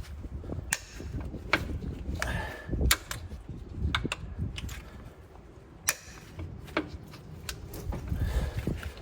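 Irregular metallic clicks, taps and a brief scrape of vise-grip pliers prying at a truck engine's rear main seal in the flywheel housing.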